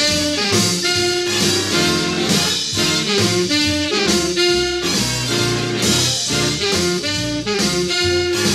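Background music: an upbeat swing-style jazz tune with horns over a steady beat.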